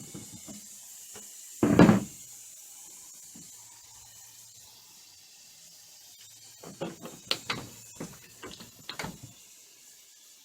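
A heavy wooden thump about two seconds in, then a quick, uneven run of lighter knocks and clicks on wood, typical of working on the camper's wooden framing.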